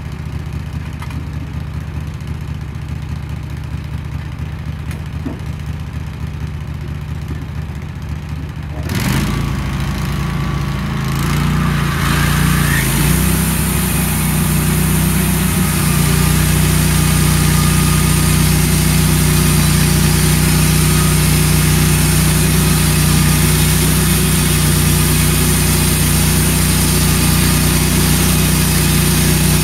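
Wood-Mizer LT15 band sawmill's engine running steadily at idle, then speeding up sharply about nine seconds in; from about twelve seconds the band blade is cutting through an ash log, louder, with a steady hiss and a faint whine from the blade.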